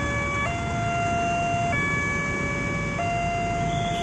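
Railroad level-crossing warning alarm sounding a two-tone hi-lo signal, switching between a higher and a lower tone about every second and a quarter: the crossing is closed for an approaching train. Road traffic rumbles underneath.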